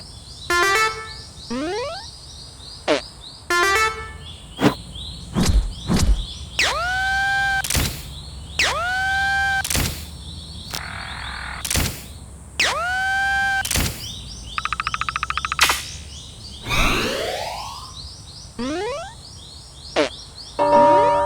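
A rapid string of cartoon sound effects standing in for comic farts: whistle-like sweeps falling steeply in pitch, three rising springy swoops in the middle, sharp thunks, and a short rapid buzz.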